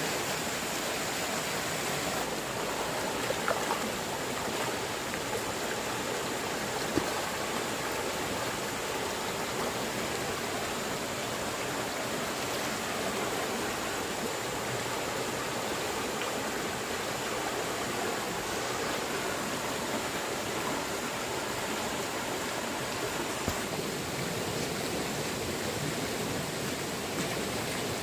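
Stream water rushing steadily, a flood-season torrent, with a few faint clicks.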